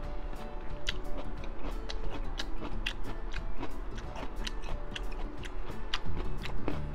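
A person chewing crunchy food close to the microphone, an irregular run of crisp crunches and wet mouth clicks, several a second.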